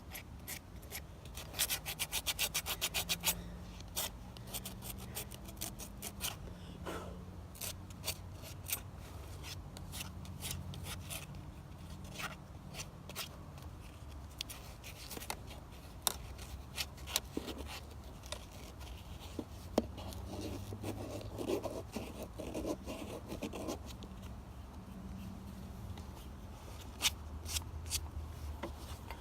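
Sandpaper rubbing by hand on the wooden handle of an old sickle, in short, irregular strokes with a quick rapid run about two seconds in, taking the old finish down to a lighter one.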